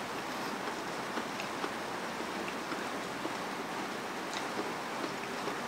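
Steady background hiss with a few faint clicks and taps as a bamboo skewer of battered quail eggs (kwek-kwek) is worked in a glass bowl of vinegar dip.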